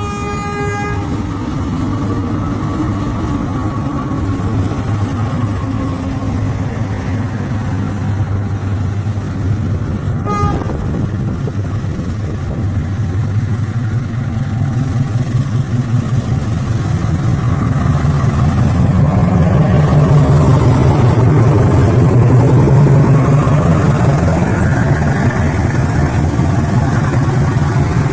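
CC206 diesel-electric locomotive departing: a short horn blast at the start and another brief blast about ten seconds in, over the steady drone of its engine, which grows louder in the second half as it pulls away.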